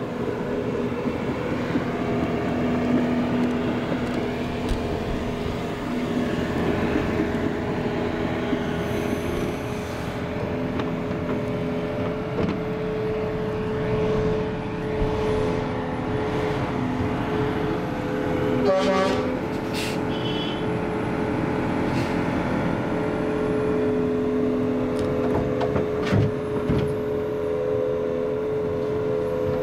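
Diesel engines of a Volvo crawler excavator and a Scania truck running steadily under load with a droning hum, as the excavator's bucket pushes the low-loader stuck in the soggy meadow. A brief rattle about two-thirds through and a knock near the end.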